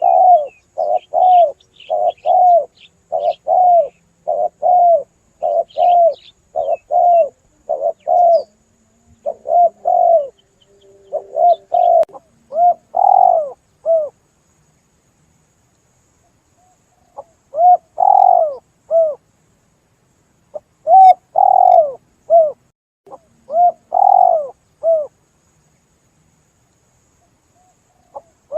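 Spotted dove (tekukur) cooing: a quick run of repeated, arched coo notes for about fourteen seconds, a pause of a few seconds, then more cooing phrases with gaps between them. Faint, higher chirps of small birds sound in the first few seconds.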